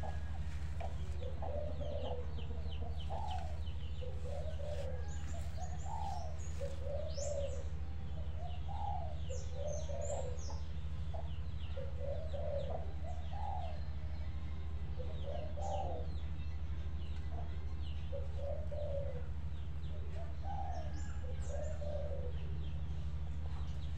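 Doves cooing over and over in short phrases about every second or so, with small birds chirping high above them and a steady low hum underneath.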